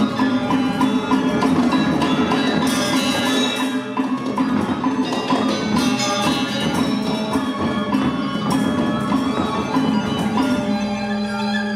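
Balinese gamelan ensemble playing: bronze metallophones and gongs struck in a dense, fast rhythm, with a steady low tone ringing on near the end.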